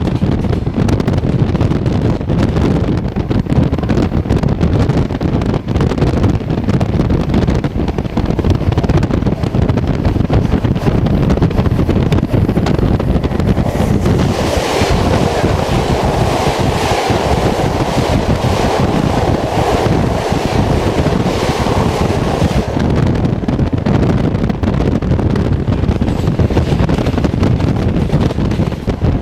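Steady rumble of a moving passenger train, heard from a carriage window with heavy wind noise on the microphone. About halfway through, an oncoming passenger train passes for several seconds, adding a louder rushing clatter that then fades.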